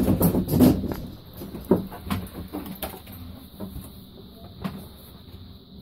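Back door of a JPM Impact fruit machine cabinet being shut: a clatter of knocks in the first second, then a sharp click and a few lighter knocks, over a steady hum.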